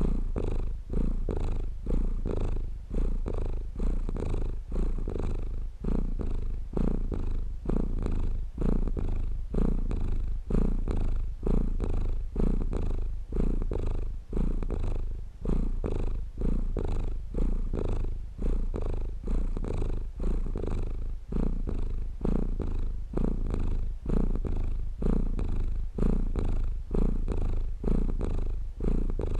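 Domestic cat purring close up, a steady low rumble that breaks briefly about every second or so as the cat breathes in and out.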